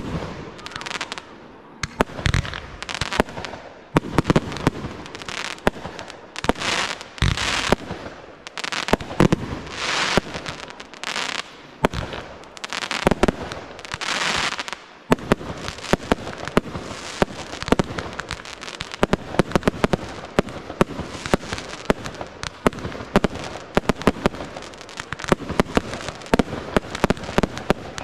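Fireworks display: shells and cakes firing and bursting with sharp bangs, with hissing swells between the reports. Past the halfway mark this turns into a dense run of rapid crackling reports.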